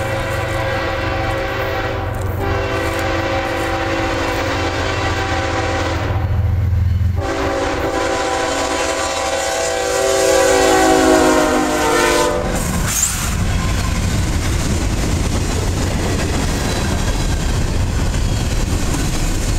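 CSX freight train led by a GE ES44AH diesel locomotive: its air horn sounds in long blasts over the engine rumble, with short breaks about 2 and 7 seconds in, and its pitch drops as the locomotives pass before cutting off about 12 seconds in. The freight and intermodal cars then roll past with steady wheel-on-rail clatter.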